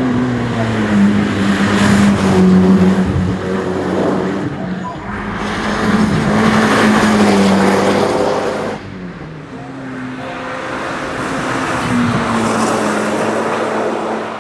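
Mitsubishi Lancer Evo VI Tommi Mäkinen's turbocharged 2.0-litre four-cylinder engine driven hard, swelling loud twice and easing off briefly in between.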